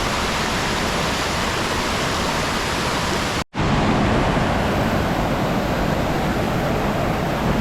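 Steady rushing of a river waterfall, cut off for a split second about halfway through and then going on slightly louder.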